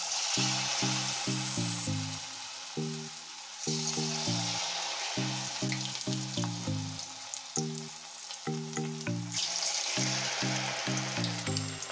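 Batter-coated baby corn deep-frying in hot oil in an aluminium kadai, a steady sizzle that flares up loudly three times, once just at the start, once about 4 seconds in and once near 9 seconds, as fresh pieces are dropped in from a spoon.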